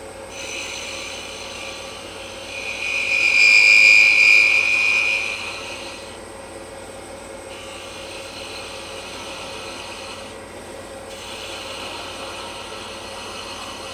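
Wood lathe running with a steady hum while a turning tool cuts a thin spinning mahogany finial; the scraping of the cut comes and goes as the tool touches and lifts. About two and a half seconds in, a high-pitched whine rises and lasts about three seconds, the loudest sound here.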